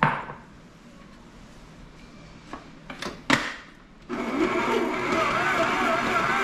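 A sharp clatter at the start, a few clicks and a knock as the stand mixer is closed up, then about four seconds in the stand mixer's motor starts and runs steadily with a wavering whine, mixing the pastry dough.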